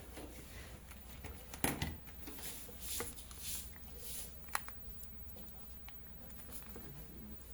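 Faint handling sounds of a charging cable being plugged into a phone: a few separate clicks and knocks with soft rustling in between, over a steady low hum.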